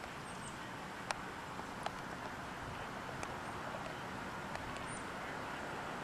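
Steady outdoor background hiss with a few faint, sharp clicks, the loudest about a second in and another near two seconds in.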